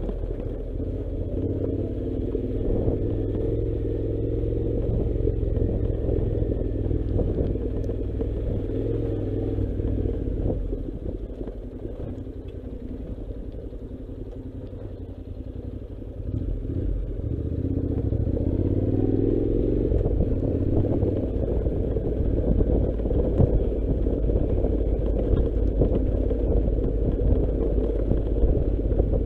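Honda NC700's parallel-twin engine running at low speed on a rough dirt track. It eases down to a quieter idle for a few seconds about halfway through, then pulls away again.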